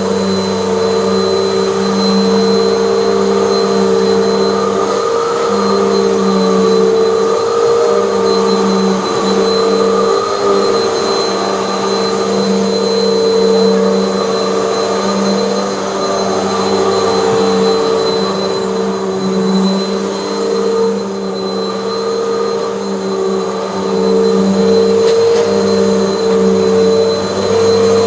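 Hoover bagless upright vacuum cleaner running steadily, its motor whine holding one pitch while the level rises and falls a little.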